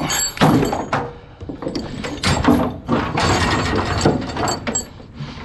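Heavy steel tie-down chain clanking and rattling against itself and a wooden trailer deck as it is handled and laid out. The clatter comes on and off, loudest about half a second in and again for a couple of seconds from about three seconds in.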